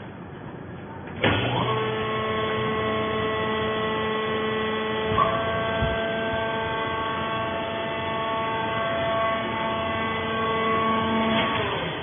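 Hydraulic power unit of a vertical fiber baler: the electric motor and pump start with a jolt about a second in and run with a steady whine, raising the press platen off the bale, then wind down just before the end.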